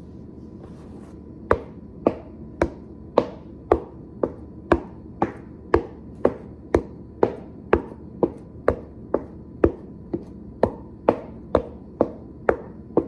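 A steady run of sharp knocks on a hard surface, about two a second, starting about a second and a half in, each with a short ringing decay.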